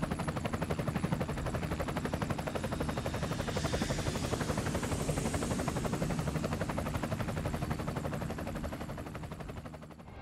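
A rapid, even chopping pulse over a low steady hum, fading away near the end.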